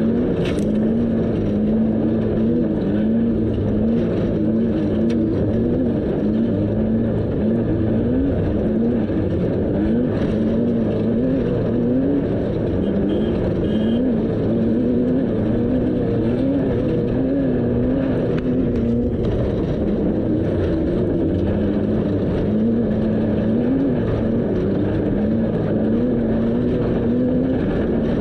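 Off-road race vehicle's engine running steadily under way, its pitch rising and falling a little every second or two with the throttle, over a steady low rumble. One sharp click about half a second in.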